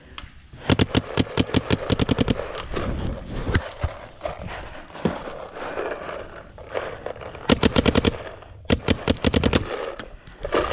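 Electronic paintball marker firing rapid strings of shots, about ten a second. One long string comes about a second in, and two shorter ones come near the end, with rustling and scraping between them.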